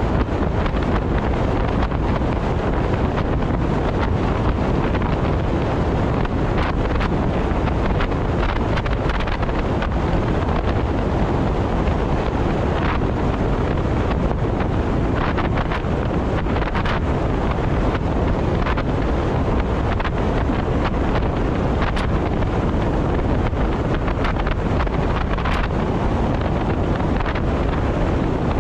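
Steady rush of wind and road noise from a car travelling at expressway speed, with a few faint clicks scattered through.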